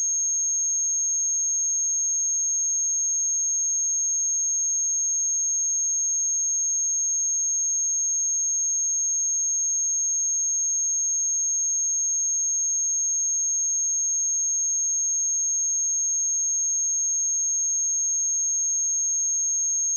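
A pure 6486 Hz sine-wave test tone, one steady high pitch held without change, as used for checking speakers and headphones.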